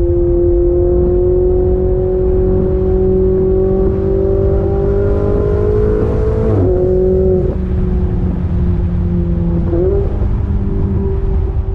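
Ferrari 488 Spider's twin-turbo V8 through a Capristo straight-pipe exhaust with the muffler and catalytic converters deleted, heard from the open cockpit. The engine note climbs slowly under light acceleration, drops sharply with an upshift about six and a half seconds in, then holds steady, with a brief upward blip near the ten-second mark.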